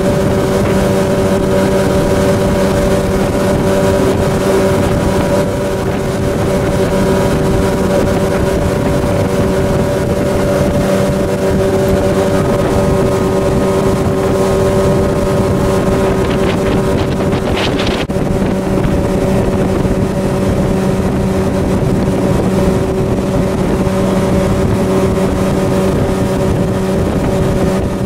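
A motorboat's engine running at a steady speed as the boat moves across the water, with a short higher-pitched sound and a click a little past the middle.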